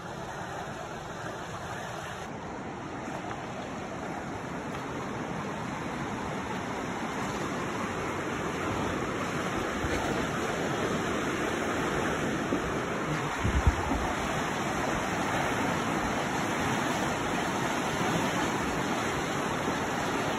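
Fast, shallow river rushing over rocks in a steady wash of water noise that grows gradually louder. A couple of brief low thumps come a little past the middle.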